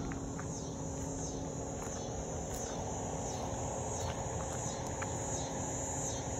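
Insects calling in woodland: a high, short falling chirp repeated steadily, about three every two seconds, over a low steady rumble.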